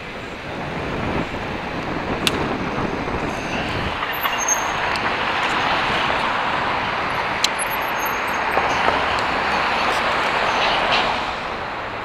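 Steady rush of city street traffic and road noise heard from a moving electric bike, swelling after about a second, with a couple of sharp clicks.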